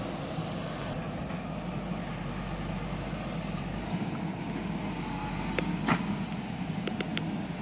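JCB 3DX backhoe loader's diesel engine running steadily, with a sharp knock about six seconds in and a few short clicks after it.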